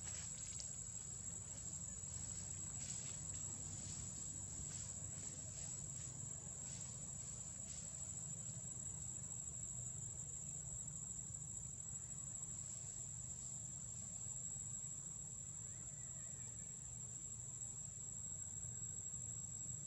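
Insects buzzing in a steady high drone over a low steady rumble, with a few faint ticks in the first half.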